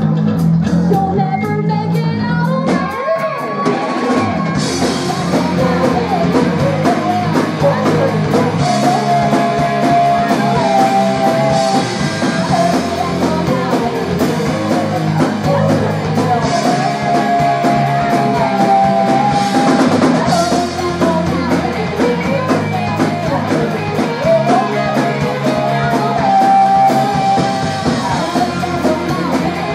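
Live rock band playing: two electric guitars, electric bass and drum kit, with a sung vocal line over them and cymbal crashes every few seconds.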